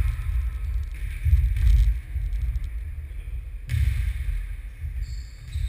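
An uneven low rumble on the microphone is the loudest sound, swelling twice. Faint sounds of a net game in a sports hall lie beneath it.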